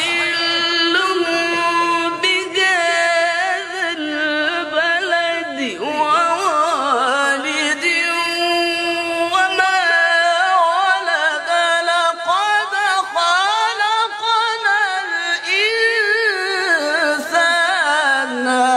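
A man reciting the Quran in the melodic, chanted style (qira'at), holding one long unbroken phrase with no pause for breath. Steady held notes give way about six seconds in to quick wavering ornaments that climb and fall in pitch.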